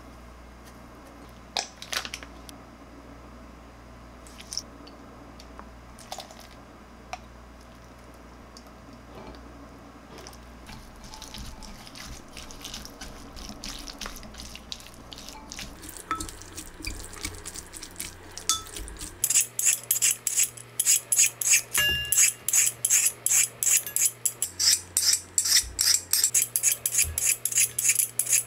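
Seasoned bean sprouts being stirred with a plastic spoon in a glass bowl, a soft rustling, then in the last third a hand peeler scraping ribbons off a carrot in quick, regular strokes, about two a second, the loudest sound.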